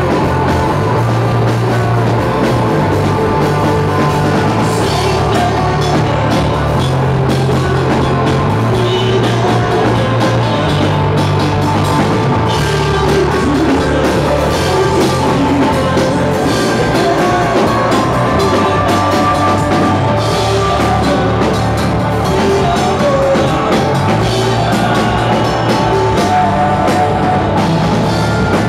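Live rock band playing loudly: electric guitars, bass guitar and a drum kit.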